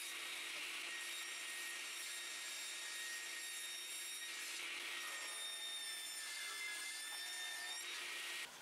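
Sliding table panel saw running with a steady high whine while its blade cuts through a glued-up solid hardwood panel; the hissing cut noise swells a few times as the wood is fed through, and everything cuts off suddenly just before the end.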